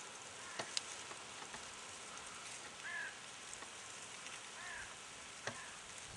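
Faint outdoor ambience: a steady low hiss, a few sharp clicks about half a second in and again near the end, and two short arched chirps in the middle.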